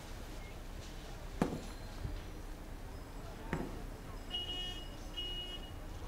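Two sharp knocks or footfalls about two seconds apart, then near the end two short bursts of a high electric ring.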